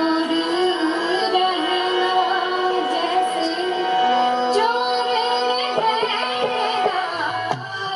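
A young woman singing a Haryanvi ragni folk song solo through a microphone, her voice wavering and ornamented over a steady droning instrumental accompaniment.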